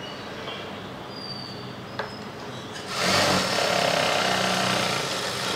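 Industrial sewing machine: its motor hums low and steady, with a single click about two seconds in. About three seconds in it starts stitching and runs at an even speed.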